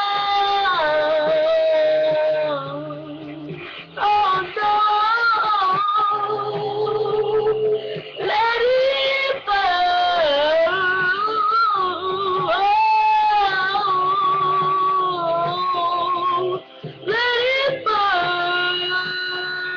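A young girl singing long, wordless held notes with vibrato over backing music, with short breaks between phrases.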